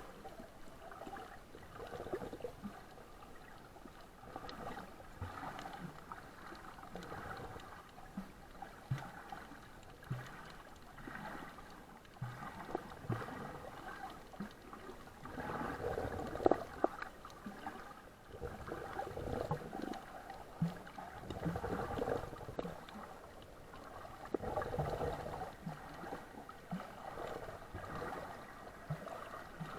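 Water sloshing and gurgling, with scattered small clicks and knocks and one sharper knock about halfway through.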